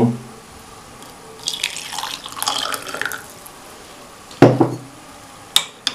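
Boiled milk being poured into a cup, a trickling splash lasting about a second and a half. A sharp knock follows, the loudest sound, then a lighter click near the end.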